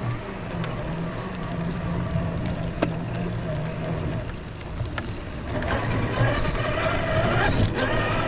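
Electric RC rock crawler's motor and geared drivetrain whining as it crawls, its pitch shifting with the throttle. It grows louder and higher about halfway through, with a couple of sharp clicks from the tyres or chassis on rock.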